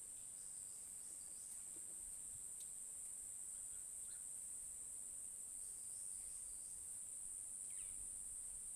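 Steady high-pitched drone of insects, unbroken throughout, with a few faint short chirps scattered here and there.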